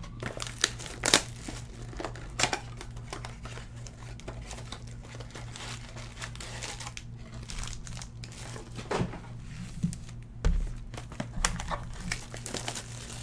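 Trading-card pack wrappers crinkling and tearing as packs are handled and opened, in scattered irregular crackles.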